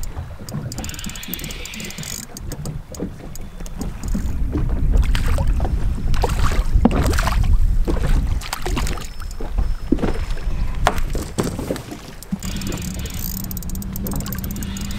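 Small boat at sea: water washing against the hull under a low rumble, with a run of knocks and clatter from gear handled on board, loudest in the middle. A steady low hum comes in near the end.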